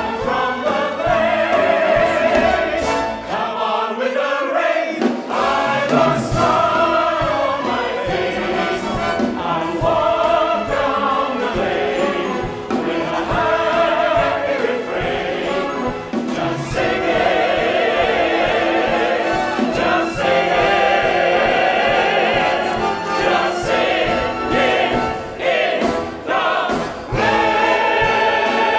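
A stage musical's ensemble cast singing in chorus over an orchestra.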